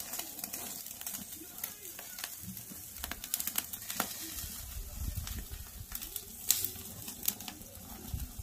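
Meat sizzling on the grate of a stainless gas grill, with scattered sharp crackles and clicks throughout and a low rumble around the middle.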